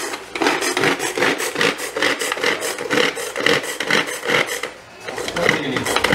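Handheld pull-cord food processor chopping garlic and red peppers: a rasping whir with each quick pull of the cord, about three pulls a second, with a brief pause about five seconds in.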